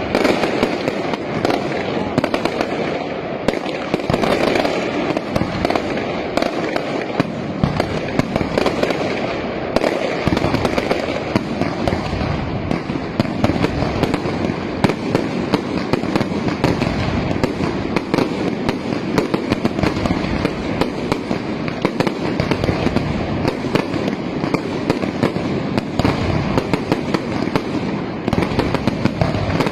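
Fireworks display going off in a dense, continuous barrage of bangs and crackling.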